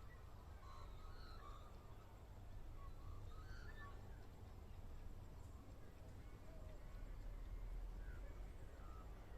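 Faint, scattered bird calls in the bush, short chirping notes coming at irregular moments, over a steady low rumble that swells about seven seconds in.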